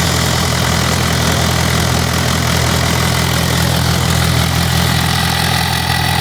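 Cummins 4B four-cylinder diesel in a Case 580K backhoe idling steadily, freshly started after sitting.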